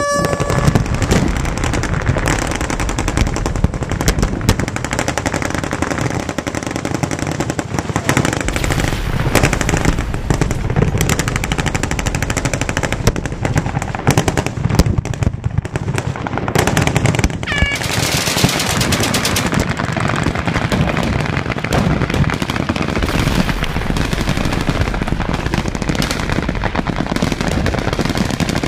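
A horn sounds briefly at the start, then massed fully automatic machine-gun fire from many guns runs on without a break, with the booms of the target's explosive charges going off among it.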